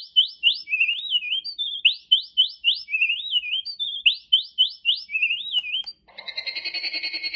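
A birdsong track played by a portable white noise machine: a phrase of four quick rising whistles followed by warbling notes, repeated three times about two seconds apart. Near the end it switches to a steady pulsing, insect-like chirring.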